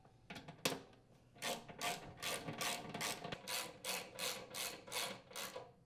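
Socket ratchet tightening the mounting screws on a furnace blower motor's support arms. Two single clicks come first, then from about a second and a half in a steady run of about a dozen ratcheting strokes at roughly three a second.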